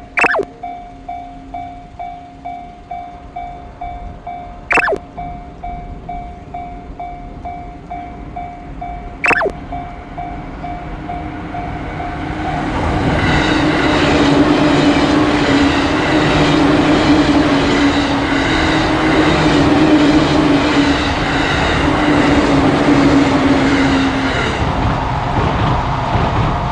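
Japanese level-crossing warning bell dinging steadily at about 1.4 rings a second, with three short falling chirps about four and a half seconds apart. About halfway through, a Tobu Tojo Line train passes over the crossing. It rumbles loudly with a steady low hum and rhythmic wheel clatter over the rail joints, then starts to fade near the end.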